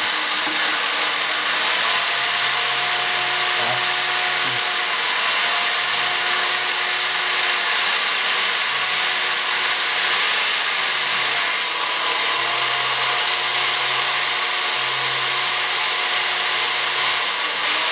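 Electric drill running continuously with its bit pressed and grinding into a smartphone's glass screen, a steady hissing whir over a motor hum whose pitch dips slightly now and then.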